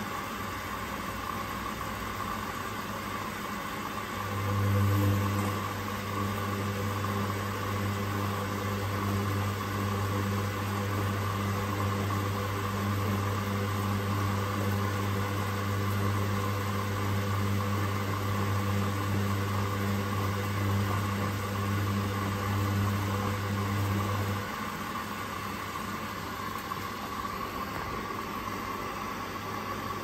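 Hoover-built Teco 9 kg front-loading washing machine tumbling its load: the drum motor starts about four seconds in with a brief surge, runs with a steady hum for about twenty seconds while the wet laundry turns, then stops.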